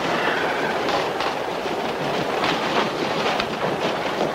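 Subway train running, heard from inside the car: a steady rumble and rattle, with wheels clacking over the rail joints.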